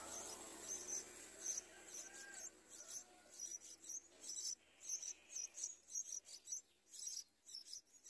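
Yellow-vented bulbul nestlings begging with rapid, thin, very high cheeps, about three a second, while they gape for food at the nest. A few fainter, lower gliding notes come in the first half.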